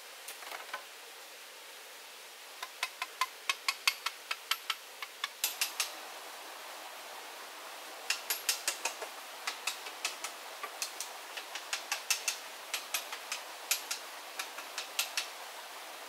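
Runs of sharp taps or knocks, about three a second, from about 3 to 6 seconds in and again from about 8 to 15 seconds in, over the steady rush of stream water.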